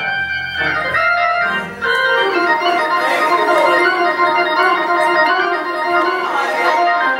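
Church organ playing held chords, with many sustained notes layered together; the low bass notes drop out about two seconds in.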